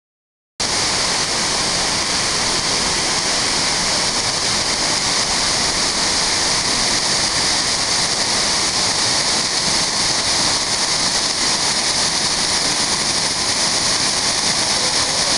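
Large waterfall, a loud steady rush of falling water that starts about half a second in.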